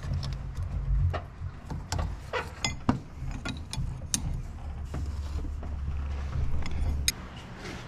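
Combination wrench clicking and clinking against the hydroboost pressure-line fittings as they are tightened, a few scattered metallic clicks with one short ringing clink about a third of the way in, over a steady low hum.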